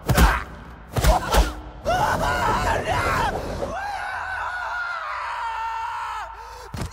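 An animated character screaming: a few sharp knocks in the first second and a half, then a long, wavering scream that holds for several seconds and trails off near the end.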